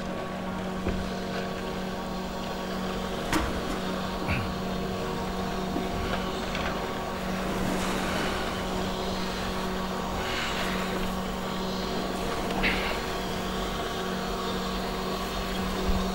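Portable high-pressure air compressor running with a steady droning hum, with a few short sharp clicks now and then.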